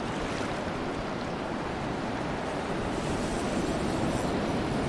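Ocean surf breaking and washing up the beach, a steady rushing wash that swells a little about three seconds in, with some wind on the microphone.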